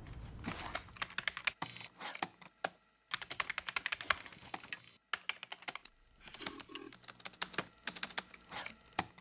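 Rapid typing on a beige PC keyboard: quick runs of clicking keystrokes in bursts, with brief pauses between them.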